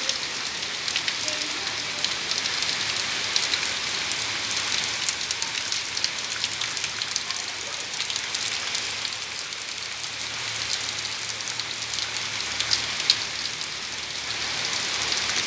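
Heavy rain falling steadily: a constant hiss full of the quick ticks of drops striking surfaces, with one sharper drop hit near the end.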